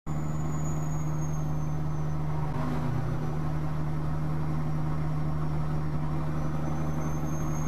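Steady low drone of a semi truck's engine and road noise heard inside the cab while driving, with an even low hum and no change in pitch.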